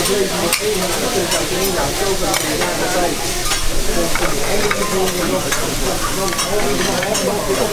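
Food sizzling on a hot teppanyaki steel griddle, steady throughout, with scattered light clicks and taps.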